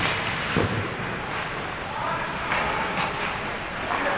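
Ice hockey game sounds in a rink: a steady noisy haze of play on the ice and voices, with a short knock about half a second in.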